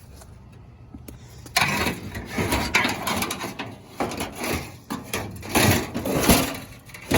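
A piece of aluminum scrap is being loaded onto a pile of scrap metal, with irregular clattering, knocking and scraping of metal on metal. It starts about a second and a half in.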